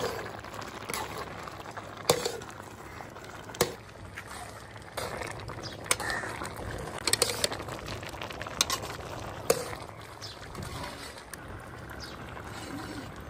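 A metal slotted spoon stirring and mashing soft boiled pumpkin in a metal pot, with sharp clinks of the spoon against the pot every one to two seconds. The pumpkin has boiled soft enough to break down into a mash.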